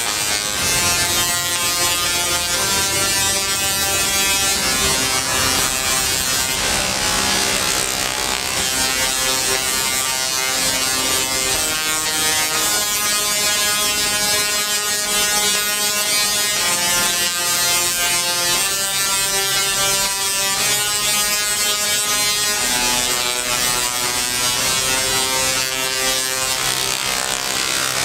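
Buzzy electronic music: held chords, changing every two to four seconds.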